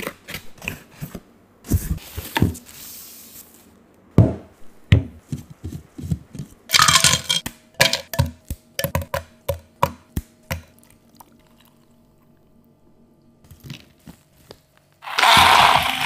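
A run of sharp clicks and knocks from cardboard packaging and ice cubes being handled into a plastic cup. Near the end a Fresh Juice portable mini blender starts up with a loud, steady whirr.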